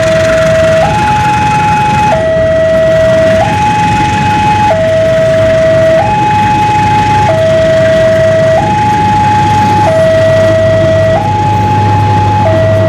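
Railway level-crossing warning alarm sounding its two-tone hi-lo "ninu-ninu", the pitch swapping about every one and a quarter seconds, warning that a train is passing. Under it, the passenger coaches of a train roll past with a low rumble that grows near the end.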